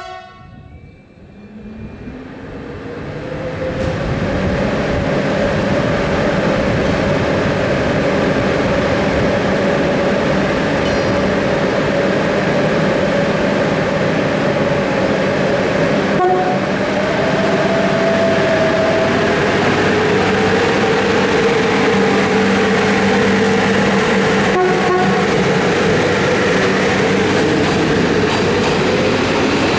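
A BDŽ class 46 electric locomotive pulling a passenger train away from a station. Its running noise builds over the first few seconds and then holds steady, with a low hum and a whine that wavers in pitch, as the coaches roll past.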